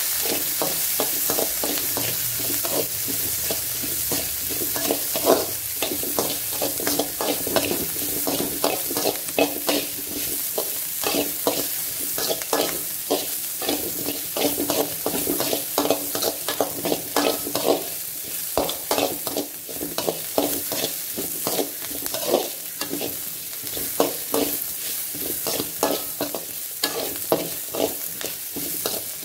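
Sliced onions sizzling as they fry in a metal pan, with a spatula stirring and scraping against the pan in many quick, irregular strokes over a steady hiss.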